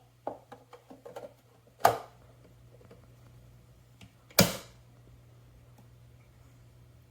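Light plastic clicks, then two sharp knocks about two and a half seconds apart, over a faint steady hum, as a single-serve coffee brewer is handled.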